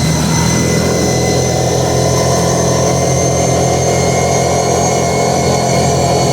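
ATV engine running at a steady speed while riding, a constant drone with no revving up or down.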